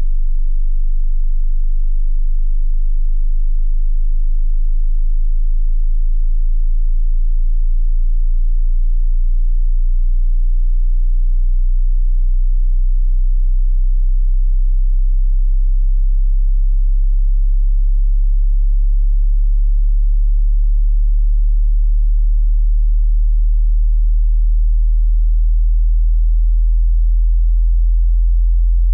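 Hearing-test tone: a loud, steady, very low-pitched pure sine tone held without a break.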